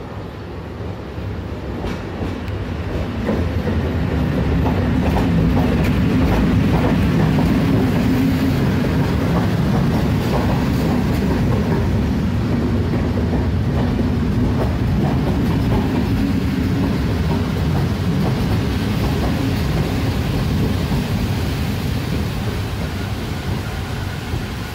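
EP07 electric locomotive and its train of passenger coaches rolling past as they arrive at the platform. The rumble builds over the first few seconds and then holds steady, with wheels clicking over the rail joints.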